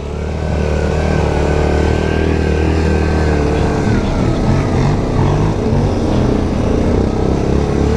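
Yamaha Grizzly 700 ATV's single-cylinder four-stroke engine running steadily under load as the quad climbs a dirt trail, with the engine note wavering a little about halfway through.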